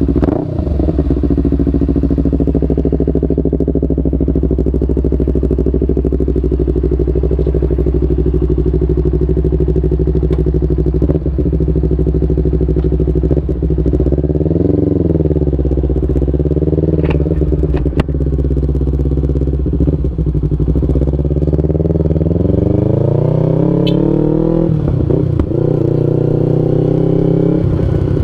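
Yamaha MT-25's 250 cc parallel-twin engine running through an aftermarket R9 H2 full-system exhaust. It idles steadily, gives one short blip about halfway, then pulls away with rising pitch in the last several seconds.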